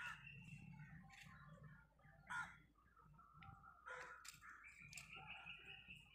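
Faint crows cawing in the background, with a few light clinks as small metal bowls are set down on the ground.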